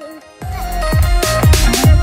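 Background music with deep bass kicks that fall in pitch. It swells in about half a second in after a quiet start.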